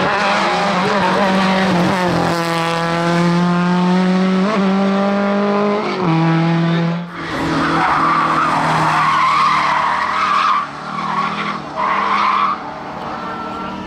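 Hillclimb race cars at speed. First a race-tuned VW Beetle's engine is held at high revs, with a few brief breaks in the note. After about seven seconds, tyres squeal hard as another car takes the bends, with the squeal wavering and dropping out twice.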